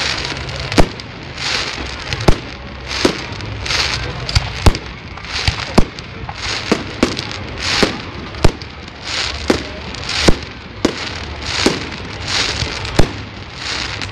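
Fireworks display going off: a run of sharp bangs, roughly one a second, with hissing, crackling swells between them.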